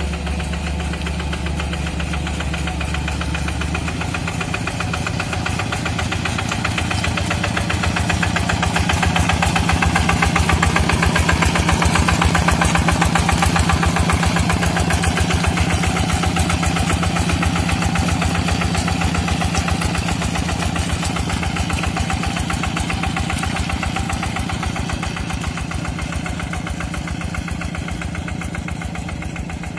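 Single-cylinder Kubota diesel engine of a Quick G3000 Zeva two-wheel hand tractor running steadily under load while plowing a flooded rice paddy, a fast even diesel chug. It grows louder toward the middle, where the machine is close, and fades somewhat near the end.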